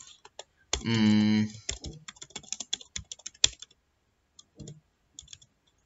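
Typing on a computer keyboard, with quick runs of keystrokes as a line of code is typed, thinning out to a few scattered keys near the end. About a second in, the typist gives a short hum at a steady pitch.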